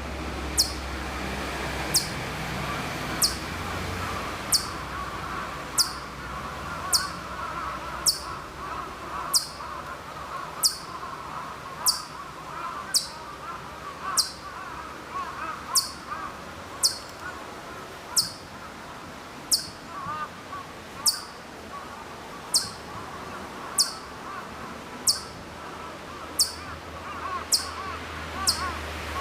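Ezo chipmunk (Hokkaido Siberian chipmunk) giving its high, sharp chip call over and over at a very even pace, about one call every second and a quarter. Each call is a short, falling chirp.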